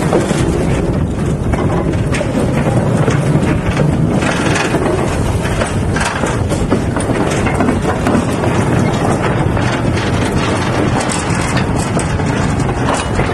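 Narrow-gauge freight train of open wagons and a brake van rolling slowly past, wheels clattering and clicking over the rail joints and pointwork in a steady run of knocks.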